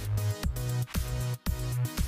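Background electronic dance music with a steady beat of about two kicks a second over a deep bass line.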